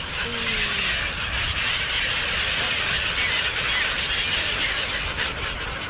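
A large flock of gulls calling all at once, a dense chatter of many overlapping high squealing calls.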